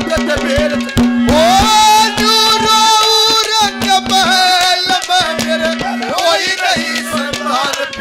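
A live Haryanvi ragni band is playing an instrumental passage. Dholak hand drums keep a fast, even beat under a melody line that holds long notes and slides between them, over a steady drone.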